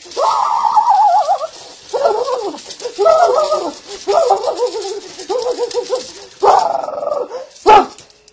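A man chanting in a high, trembling voice, in about seven short wavering phrases, in the manner of a Nepali jhakri shaman calling on the spirits in trance. A short, sharp, loud burst comes near the end.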